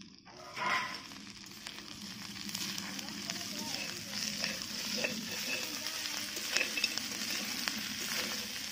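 Chopped goat meat and bay leaves sizzling as they fry in a large aluminium wok, stirred with a metal spatula that scrapes and clicks against the pan. The sizzle grows louder over the first few seconds, with a louder scrape about a second in.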